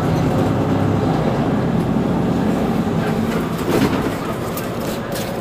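Mercedes-Benz Citaro C2 city bus engine idling steadily while the bus stands at a stop. A short, louder noise comes nearly four seconds in, and a few brief hisses near the end.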